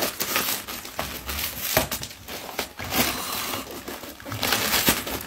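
A dog tearing and crumpling a present's wrapping: irregular crinkling and crackling of paper.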